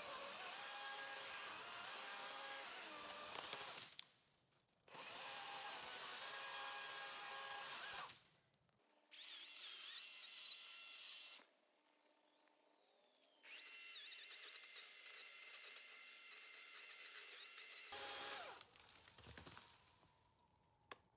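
Battery-powered chainsaw running in bursts of a few seconds each, cut off abruptly between them; the later bursts are quieter, with a steady high whine.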